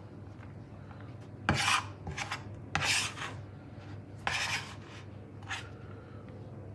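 Hands sweeping and scooping chopped parsley across a plastic cutting board: about five short scraping swishes a second or so apart.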